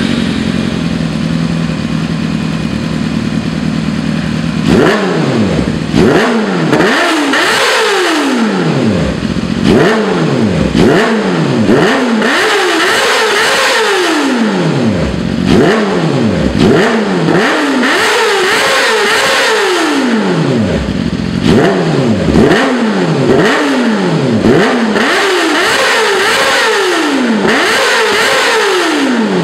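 2014 Yamaha YZF-R6's 599 cc inline-four engine breathing through a full-system titanium Akrapovič exhaust with a conical muffler. It idles steadily for about five seconds, then is free-revved in quick throttle blips, one after another to the end, each rev rising and falling back.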